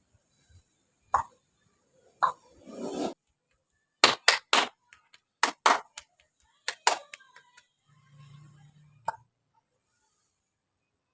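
Hands striking skin during a head and ear massage: sharp slaps in quick groups of two or three, with a short rustle of hands moving about three seconds in.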